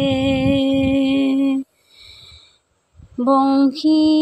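A Borgeet (Assamese devotional song) sung by one voice, holding a long note at the end of a line. It breaks off abruptly a little over a second and a half in, falls silent, and the singing starts again with another held note about three seconds in.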